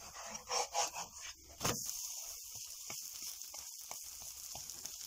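A wooden spatula scraping and rubbing under a thick egg-and-cheese flatbread in a nonstick frying pan, then a thud about one and a half seconds in as the flatbread is flipped over. After that the pan sizzles steadily as the raw side fries on the oiled surface.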